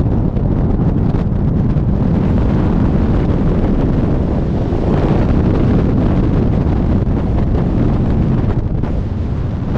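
Loud, steady rush of freefall wind buffeting the microphone, a low rumbling roar of air.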